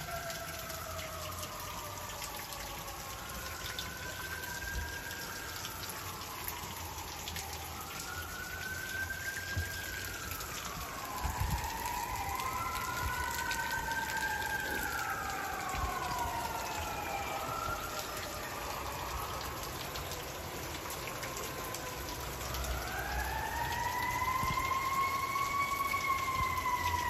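Fire truck sirens wailing in slow rising and falling sweeps, overlapping at times, growing louder near the end as a truck approaches. Steady rain hisses underneath.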